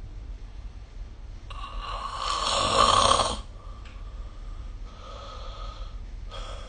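A sleeping person snoring: one long, loud snore that swells for about two seconds and then breaks off, followed by quieter breaths.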